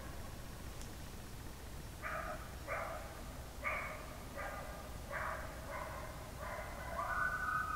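An animal calling repeatedly: a string of about eight short calls, then a longer drawn-out call that glides downward near the end.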